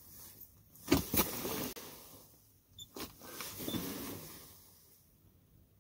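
Handling noises: a sharp knock about a second in and another about three seconds in, each followed by a short scraping rustle that fades out.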